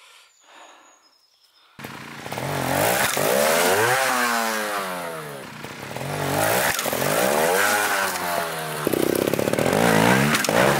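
Trial motorcycle engine revving in repeated throttle blips, its pitch rising and falling every second or two, as the bike is ridden up and over a large log. It starts suddenly about two seconds in.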